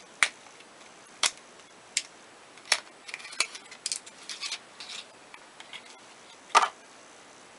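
Cosmetic packaging being handled as a serum tube is taken out of its shiny box: a string of sharp clicks and crinkles, busiest in the middle, with one louder knock near the end.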